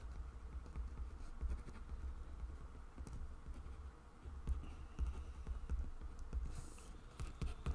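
Ballpoint pen writing on a small paper slip: faint, irregular scratching with small taps, over a low hum.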